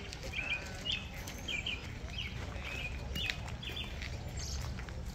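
A small songbird chirping: short notes repeated about twice a second, stopping about four seconds in. A low steady rumble runs underneath.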